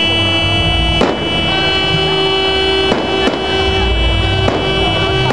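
Aerial fireworks bursting: four sharp bangs spread over a few seconds, over continuous music with held tones and a low bass rumble.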